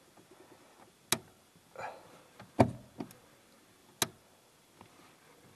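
Ford Super Duty clutch pedal being pushed and released by hand, with its newly connected master-cylinder pushrod: four sharp clicks, two close together in the middle, and a brief soft rustle between them.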